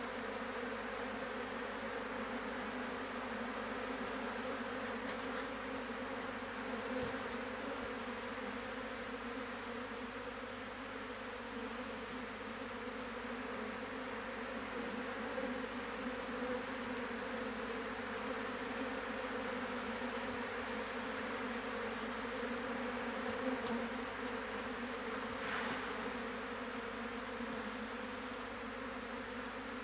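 Steady, even-pitched buzzing of a large honeybee swarm close up, thousands of bees crawling over the comb and streaming into a new hive as the swarm is being hived.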